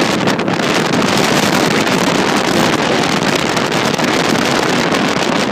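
Strong tropical-storm wind blasting the microphone: a loud, steady rush of noise with no break.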